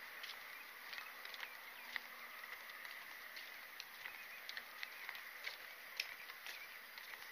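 Footsteps on a wooden boardwalk, light irregular clicks and knocks, over a faint steady hum of insects in the mangroves.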